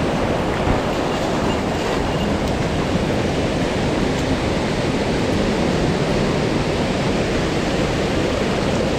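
Steady rush of a fast mountain stream, an even roar of water.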